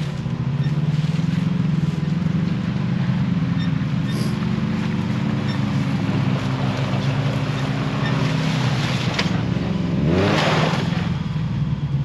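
Can-Am Maverick X3 X rc side-by-side engine revving unevenly as it crawls up a steep rutted ledge, with a sharper rising rev about ten seconds in. A front tire isn't pulling: the Smart-Lock front differential won't lock, which the driver suspects is broken.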